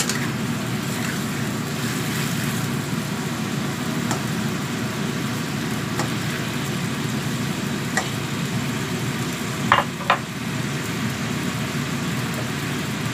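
Steady rushing noise of a kitchen range hood fan and gas burner under a wok of simmering bottle gourd, with a metal ladle clinking against the wok a few times, twice loudly in quick succession about ten seconds in.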